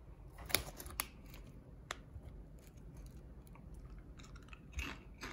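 Thick-cut ridged potato chips crunching as they are bitten and chewed: a few sharp crunches in the first two seconds, then softer irregular crunching.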